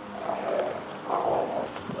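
A dog giving two short, rough growls, about half a second each, the second starting about a second in.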